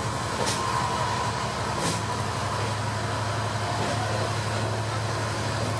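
Diesel railcar running along the line, heard from inside: a steady engine hum that grows a little stronger about two seconds in, with a couple of short sharp clicks.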